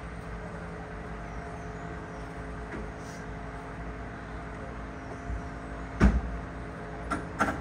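Steady mechanical hum of background machinery, with a sharp knock about six seconds in and two smaller knocks near the end.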